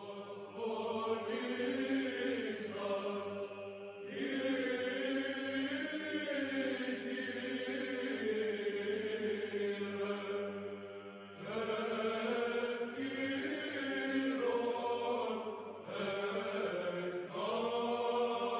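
Church chant: voices singing long, slowly moving phrases, broken by short pauses about four, eleven and sixteen seconds in.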